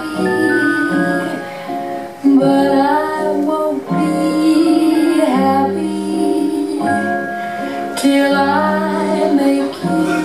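Music with a woman singing a slow melody of long held notes over an accompaniment.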